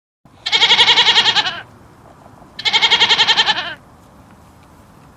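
A farm animal bleating twice, two long quavering bleats of about a second each, the second starting about a second after the first ends.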